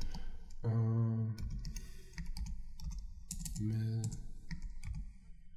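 Typing on a computer keyboard: scattered single keystrokes. A man's voice makes two drawn-out wordless sounds, about a second in and again near four seconds.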